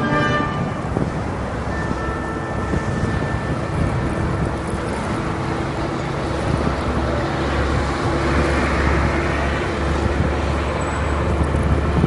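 Street traffic on a snow-covered city road: cars and a city bus driving past, a steady rush of tyre and engine noise with a low engine drone that strengthens in the second half as the bus goes by.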